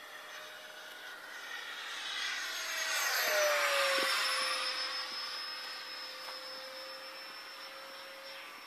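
Electric ducted fan of an LX F-22 Raptor RC jet, a 70 mm ten-blade Changesun fan on a BL-32 motor, whining in a fly-by. It grows louder to a peak about three and a half seconds in, drops in pitch as it goes past, then fades.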